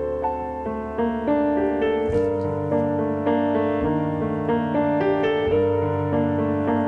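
Background piano music, notes changing every half second or so over a sustained bass.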